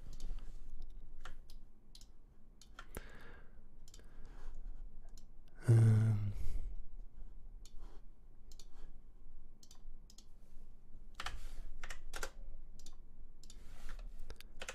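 Computer mouse clicks and keyboard keystrokes, sparse and irregular, with one brief louder noise about six seconds in.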